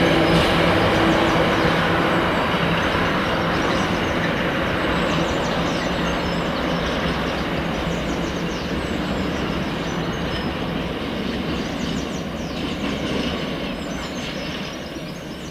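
A freight train's wagons rolling past over the rails, the noise slowly fading as it moves away. A steady low hum dies out in the first few seconds.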